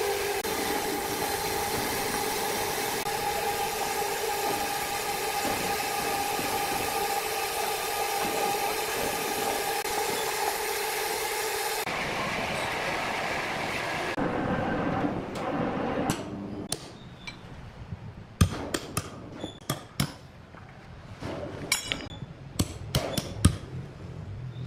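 Sawmill machinery hums steadily with a few fixed tones, then winds down and stops about halfway through. After that come scattered sharp knocks and metal clinks as steel braces are set against the big log.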